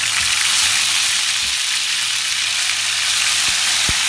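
Ginger-garlic paste sizzling steadily in hot oil in a non-stick frying pan as it is stirred with a silicone spatula, with two low bumps near the end.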